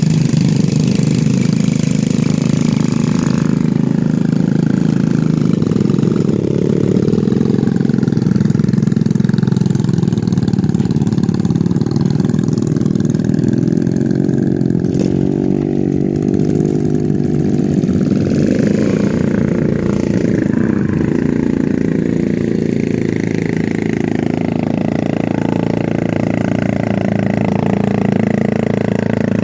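Motorcycle engine running steadily, its pitch shifting a little now and then.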